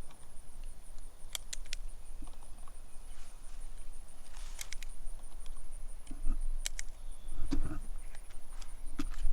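A few scattered light clicks and knocks from handling a firearm and its rounds while getting ready to fire, with a faint steady high-pitched whine in the background.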